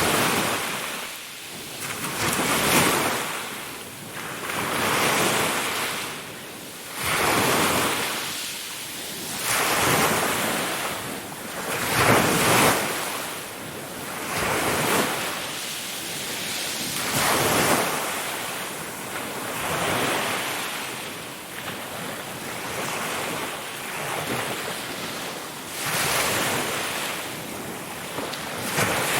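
Ocean waves breaking on shore in a steady series of surges, each swelling and washing away every two to three seconds, with a wind-like hiss between them.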